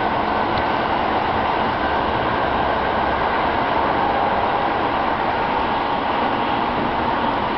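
Steady running noise heard inside the car of a moving electric commuter train, even and unbroken.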